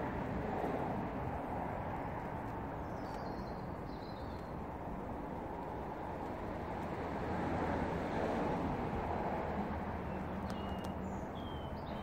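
Steady low outdoor rumble that swells briefly near the start and again past the middle, with a few faint, high, short bird chirps a few seconds in and near the end.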